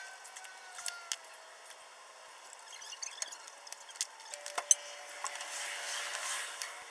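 Scattered light clicks and metallic clinks of hand tools and parts being handled, the sharpest about two-thirds of the way in, over a faint steady hum.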